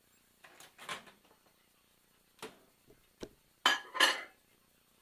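A few irregular sharp clinks and knocks, the loudest pair about three and a half to four seconds in.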